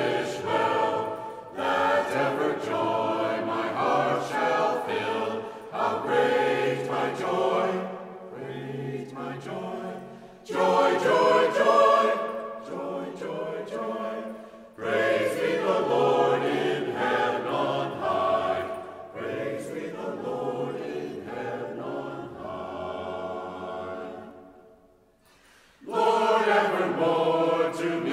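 Church choir singing in phrases with brief breaks. A few seconds before the end the singing fades to a near-silent pause, then comes back in full.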